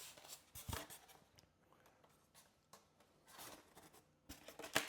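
Faint rustling and handling of unboxing packaging, with a soft knock about two-thirds of a second in.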